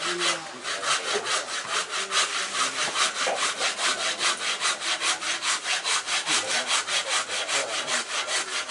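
Hand saw cutting through wood in quick, even strokes, about five a second, stopping near the end.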